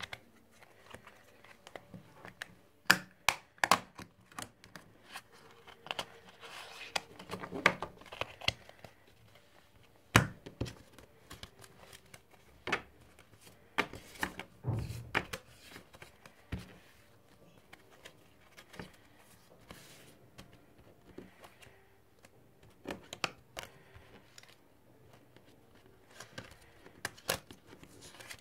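A deck of playing cards being shuffled by hand: irregular soft riffles with scattered sharp snaps and clicks of the cards. Near the end, cards slide across the table as they are spread out.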